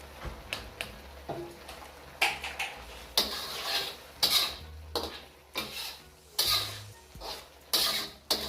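A spoon stirring and scraping around a karahi, with short scrapes about once a second from about two seconds in, mixing freshly added chilies, ginger and pepper into meat cooking in its liquid.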